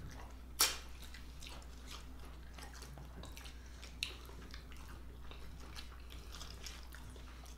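Close-up eating sounds: chewing and wet lip smacks, with a sharper smack about half a second in and another about four seconds in, over a faint steady low hum.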